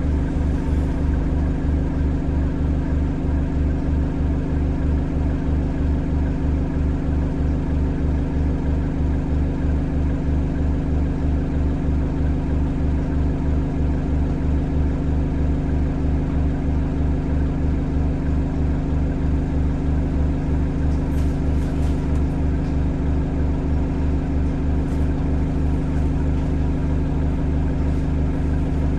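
Diesel engine of a single-deck bus idling steadily while the bus stands still, heard from inside the passenger saloon as an even low throb.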